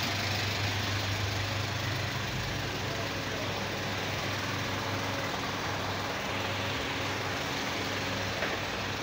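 Engine of a light truck idling close by: a steady low hum. A short knock sounds near the end.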